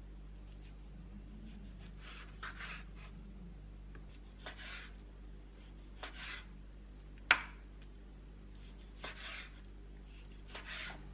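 Kitchen knife cutting raw chicken on a wooden cutting board: about six separate cuts, each a short knock of the blade on the board with a brief slicing rasp, the sharpest knock about seven seconds in. A low steady hum runs underneath.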